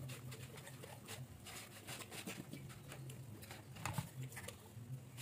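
Hands rubbing and squeezing salt into a whole raw chicken in a plastic basin: faint, irregular wet squelches and slaps of skin and flesh, with a louder slap about four seconds in.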